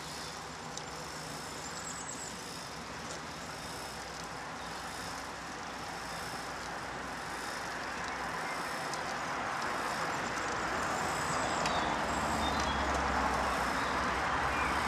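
Car windscreen wiper motor and linkage running at the second (fast) speed: a steady mechanical whirring that grows louder over the second half. The wiper mechanism has just been fully reassembled and is being tested.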